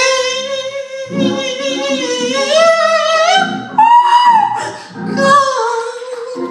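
Gospel singing: one voice holds long, high notes with vibrato, climbing higher about four seconds in and then falling back, with instruments underneath.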